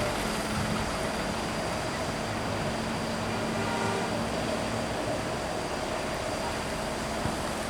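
Motor vehicle engine running steadily on the road: a continuous low hum over road noise, with no clear pass-by swell.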